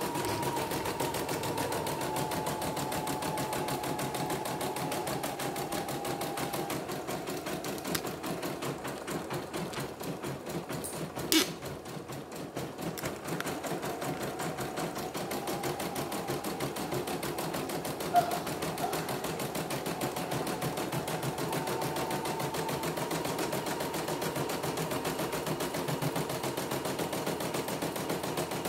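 CNY computerized embroidery machine stitching a test design at its 450 stitches-per-minute setting: a fast, even chatter of needle strokes over the hum of its motor. A sharp click stands out about eleven seconds in, and a smaller one about eighteen seconds in.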